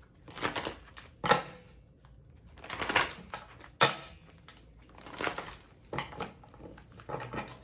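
A Moonology oracle card deck being shuffled by hand, in a series of short, irregularly spaced shuffling bursts.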